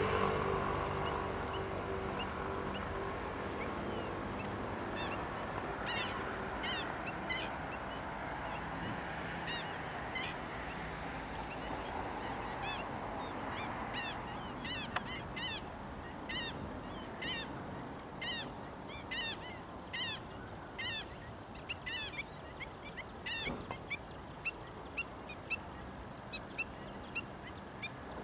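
A flock of flamingos calling with short goose-like honks, scattered at first and coming more and more often, about one a second by the end. A low rumble fades out in the first few seconds.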